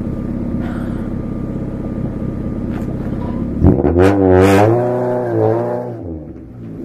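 Acura Integra's four-cylinder engine running steadily. About three and a half seconds in, the car pulls away with a sudden jump in loudness, yanking the string tied to a loose tooth. A loud wavering yell follows and rises and falls for about two seconds.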